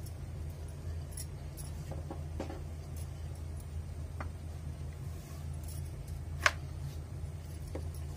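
Wooden rolling pin rolling dough on a steel plate, with scattered light clinks of glass bangles and the plate and one sharp click about two-thirds through. A low steady hum runs underneath.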